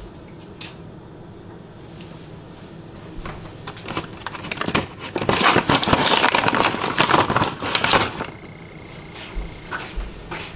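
Clattering and rattling as a dog works at a refrigerator, opening the door and pulling at the bottles inside. The clatter runs for about four seconds, and near the end a steady high tone sounds for a second or two.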